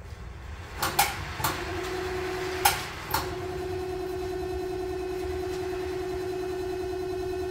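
Electric chain hoist lifting a welding bed: a few clunks from the pendant controls and hoist, then the hoist motor running with a steady hum that stops and restarts after a loud clunk about three seconds in.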